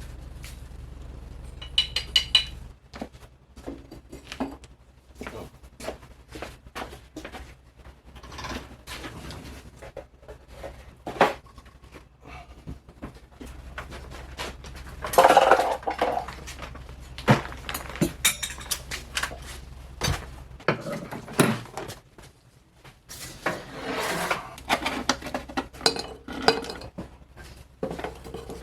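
Scattered clinks, clatters and knocks of hard objects being handled and set down on a workbench, irregular throughout with a busier stretch about halfway through, over a low steady hum that comes and goes.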